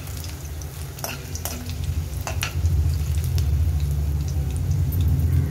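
Garlic cloves, bay leaves and tirphal sizzling in hot oil in a steel kadhai as the garlic browns, stirred with a steel ladle that clinks against the pan several times in the first half. A steady low rumble runs underneath and grows louder about three seconds in.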